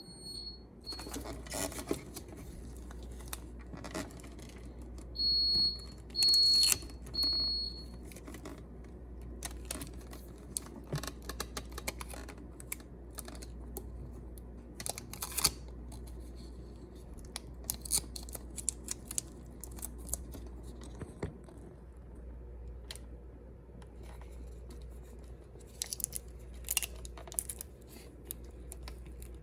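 Hand-work handling noises: scattered clicks, rustles and tearing-like crinkles, with three short high-pitched electronic beeps about a second apart near the start, over a low steady hum.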